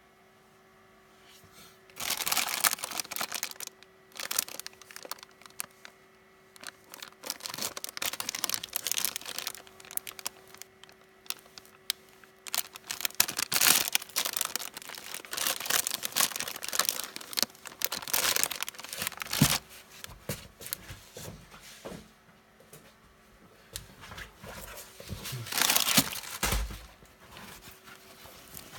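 Hands tearing open and handling parcel packaging: crinkling and tearing in irregular bursts, with a loud burst near the end.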